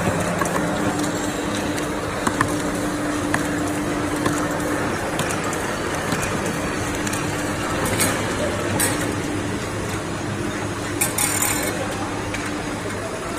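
Bouillon cube production-line machinery running: a steady mechanical hum and rattle, with light clicks and ticks scattered through it.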